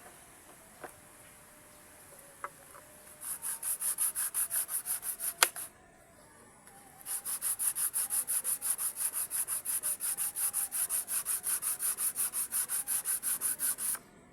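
Hand sanding of a surfboard fin, fast even back-and-forth strokes at about five a second, in a short spell and then a longer one after a brief pause. A single sharp click comes at the end of the first spell.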